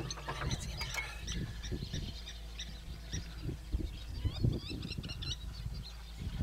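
Wild birds chirping and calling, with many short high chirps thickest in the middle, over a steady low rumble with scattered low thuds.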